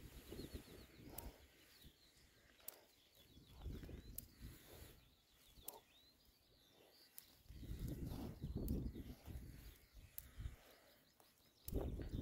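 Quiet pasture ambience: low gusts of wind on the microphone come and go. A small bird twitters a few short trills in the first few seconds.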